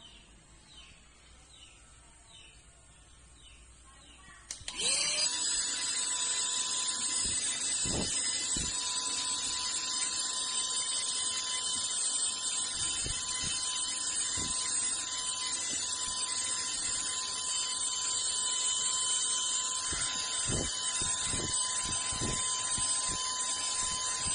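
Portable mini handheld vacuum cleaner switched on about five seconds in: its small motor spins up with a rising pitch, then runs at a steady high-pitched whine, with a few low knocks from handling.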